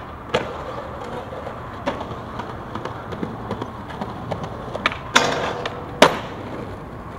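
Skateboard wheels rolling on concrete and asphalt, with several sharp board impacts from pops and landings. The loudest impacts come about five and six seconds in.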